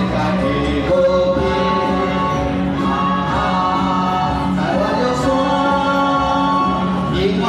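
Man singing into a microphone over backing music, holding some notes for about a second.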